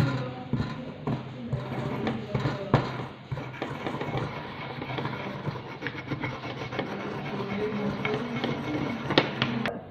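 Pestle grinding tablets in a mortar to a homogeneous powder: a continuous scraping rub broken by frequent sharp knocks of the pestle against the bowl.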